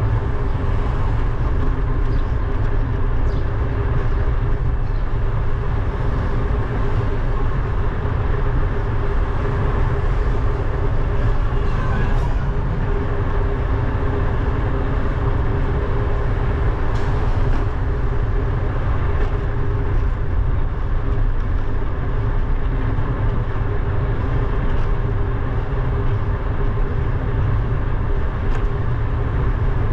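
Steady wind rush and road rumble on the microphone of a bike-mounted GoPro while riding along a city street, with a faint steady hum underneath.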